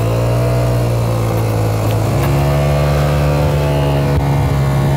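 Italjet Dragster 125 scooter's single-cylinder engine running under way, a steady engine note that rises slightly about two seconds in as the scooter picks up speed.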